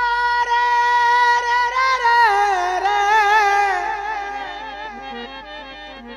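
A man singing a devotional bhajan holds one long high note, then ornaments it with wavering turns as it falls and fades, over keyboard accompaniment and light percussion ticks.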